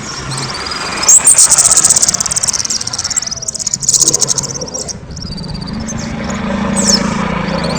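Kemade bird singing loudly: fast, high-pitched trills and chatter with rising whistled notes, fullest in the first half. A low steady hum runs beneath in the second half.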